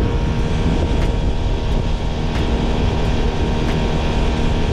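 An outboard motor running steadily at planing speed on a shallow-draft bay boat, with a constant engine tone under the rush of water along the hull.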